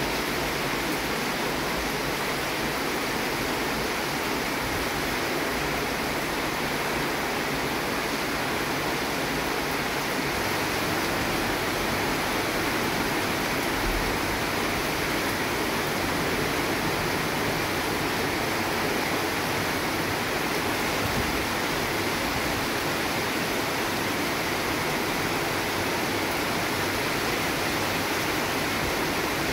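Steady rain falling: a continuous, even hiss of drops that holds the same level throughout.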